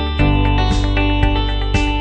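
Background music with a steady beat, about two beats a second.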